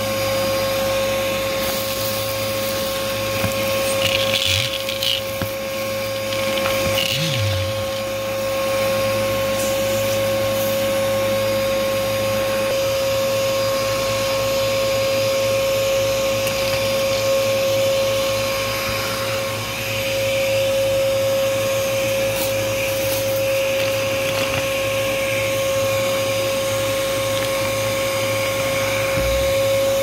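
Vacuum cleaner motor running steadily with a high whine, its hose sucking up small debris from carpet, with a few brief rattles several seconds in.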